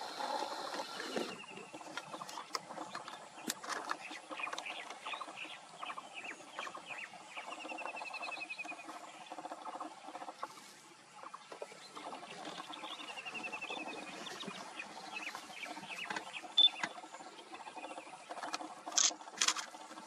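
Small birds calling in the background, one giving a short falling trill three times, over scattered chirps and ticks. A few sharp clicks near the end.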